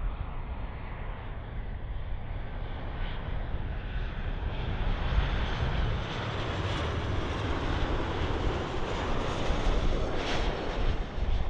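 A passenger aircraft's engines passing at an airport: a continuous roar with a deep rumble that grows louder and brighter over the first half and stays loud.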